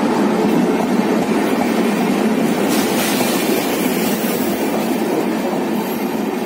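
Passenger train coaches rolling past along the platform as the train pulls in: a steady, loud rumble of steel wheels on the rails that slowly gets quieter.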